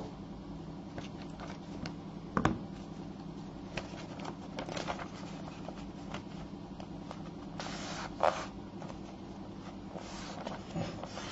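Faint steady low hum with scattered small clicks and scrapes of things handled on a desk, a single knock about two and a half seconds in and a short paper-like rustle around eight seconds in.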